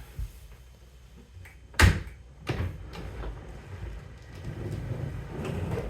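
Samsung dishwasher being pulled out from its under-counter opening: a sharp knock about two seconds in, a second thump just after, then a low rumble as the unit slides out.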